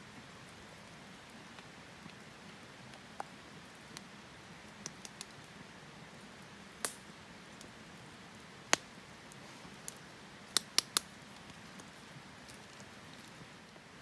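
Wood campfire crackling: a faint steady hiss with scattered sharp pops and snaps, three of them in quick succession about three-quarters of the way through.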